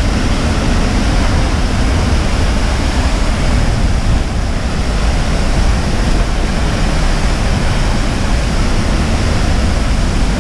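Waterfall pouring, a loud, steady rushing noise heard close up in its spray, with a heavy low rumble.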